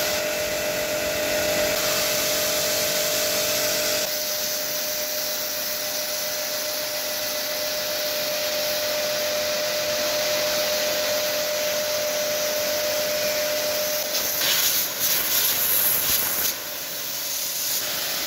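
Electric high-pressure washer running, its water jet hissing steadily as it blasts dried dirt off a surface, with a steady motor whine underneath. The whine drops away about 14 seconds in, and sharper bursts of spray hiss follow for a couple of seconds.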